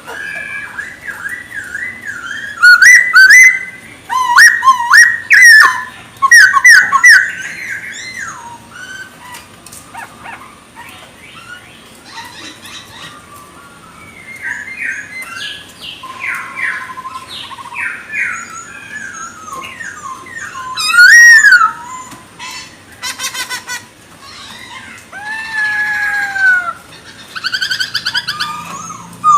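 A Chinese hwamei (poksay Hongkong) singing vigorously: a varied run of loud, sliding whistled phrases and rapid repeated notes, with the loudest bursts a few seconds in and again about two-thirds of the way through.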